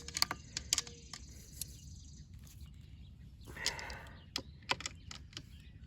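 Scattered sharp metallic clicks and knocks of a tool working the fittings on a pool pump as loose fixings are tightened, with a brief rustle about three and a half seconds in.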